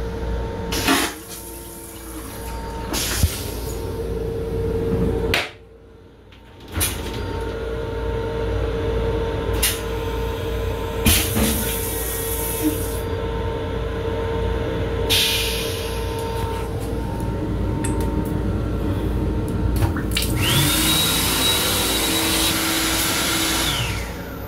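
Flush cycle of an LIRR M7 railcar's stainless-steel toilet: several loud hissing rushes of rinse water and suction, the last lasting about four seconds with a steady high whine. Under it runs the constant rumble of the moving train.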